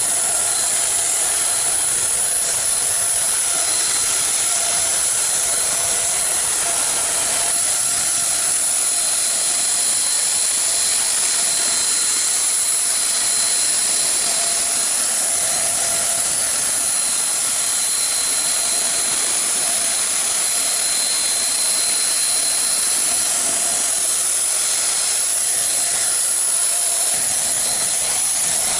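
Paint sprayer spraying paint onto a metal roller garage door: a loud, steady hiss that never breaks, with a faint steady whine.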